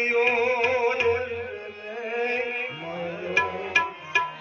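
Bhajan music: a singer holds a long wavering note over a steady harmonium drone. Near the end, the tabla comes in with a few sharp strokes.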